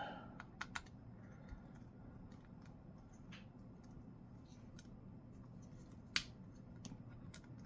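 Faint, scattered small clicks and taps of a small screwdriver working the tiny battery screws inside an opened laptop, the sharpest click about six seconds in, over a low steady hum.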